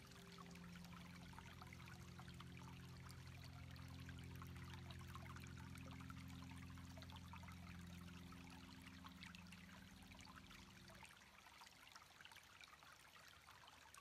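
Faint trickling, fizzing water. Under it is a low steady hum of several held tones, which stops about eleven seconds in.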